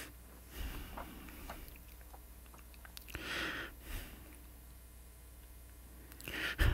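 A man's faint breathing and sniffing in a long pause while he fights back tears, with a few small clicks; a breath about three seconds in is the loudest, and he draws a breath near the end.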